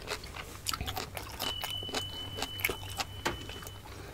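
Close-miked chewing of steamed siomai dumplings: soft wet mouth clicks and smacks, irregular and many. A thin steady high tone sounds for about two seconds in the middle.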